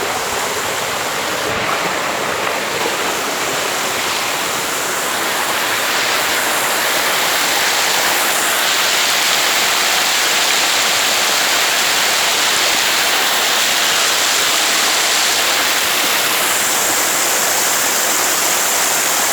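Waterfall: a steady, loud rush of falling water, growing a little louder about six seconds in.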